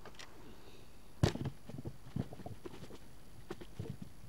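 A sharp plastic knock about a second in, then a run of lighter irregular clicks and taps: Lego pieces and figures being handled and knocked together during play.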